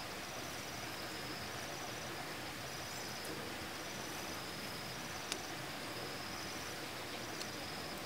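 Insects trilling in the forest: a high, pulsing trill repeating roughly every second and a half over a steady hiss. Two short sharp clicks come about five and seven seconds in.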